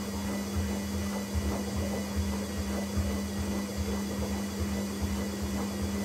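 Indesit Innex washing machine running: a steady electric motor hum with irregular low rumbling underneath.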